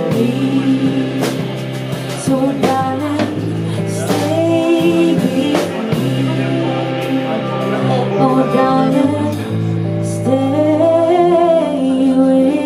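A live band playing a soul ballad: a female lead vocal over electric guitar, bass guitar and drum kit.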